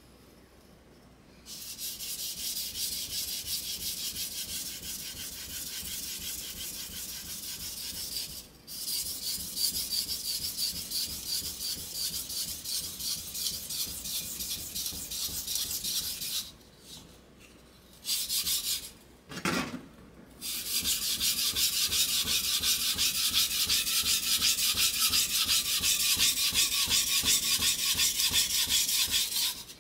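A steel kitchen knife blade is rubbed back and forth in rapid, even strokes on a wet whetstone. About halfway through the strokes stop for some four seconds, broken by a short burst of rubbing and a brief low thud, and then carry on steadily.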